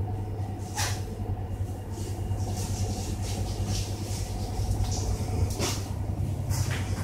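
Steady low hum and rumble of background noise, with a few brief faint rustles.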